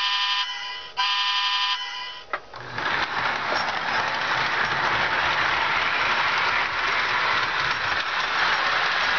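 Lionel Thomas the Tank Engine model train blowing its whistle twice in short blasts, the second about a second in. Then, from about two and a half seconds, the locomotive runs along the track with a steady whirring of its motor and wheels.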